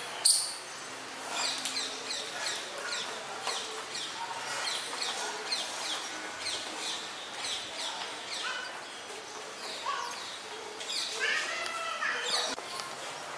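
Small birds chirping in a garden: many short, quick downward-sweeping chirps through the whole stretch, with a louder, harsher call near the end. A sharp click sounds right at the start.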